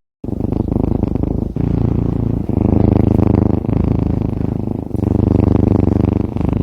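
A domestic cat purring loudly, close up: a low, rapid rumble that swells and eases with each breath, about once a second.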